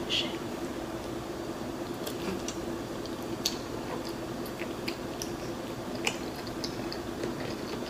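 Close-up mouth sounds of biting into and chewing a shrimp har gow dumpling: soft wet clicks and smacks scattered throughout, over a steady low hum.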